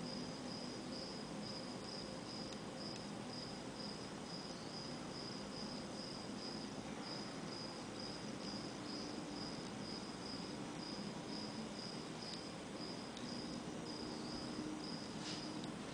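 A cricket chirping steadily, about three short high chirps a second, over a faint hiss. A short sharp click near the end.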